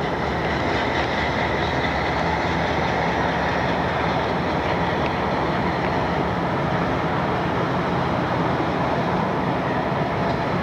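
Mohawk, Adirondack & Northern diesel locomotive rolling slowly past, its engine running steadily.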